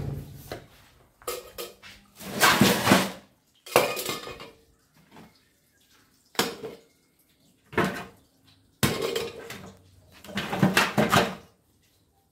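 Metal scrap clattering in a large metal pot as it is rummaged through and pieces are pulled out, in about half a dozen separate bursts with short pauses between.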